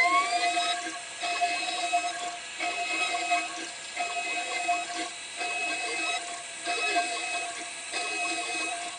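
TwoWin CNC 6040 router running a job: its stepper motors whine at a steady pitch in moves about a second long, broken by short pauses. A rising whine comes at the start as the motion speeds up.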